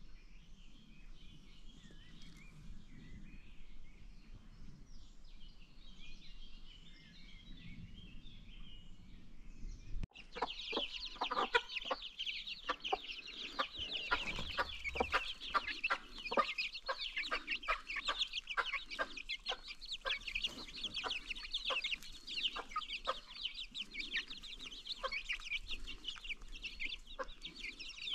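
Baby chicks peeping, faint for the first ten seconds. After a sudden cut they become a loud, dense chorus of high, rapid peeps with short lower clucks mixed in.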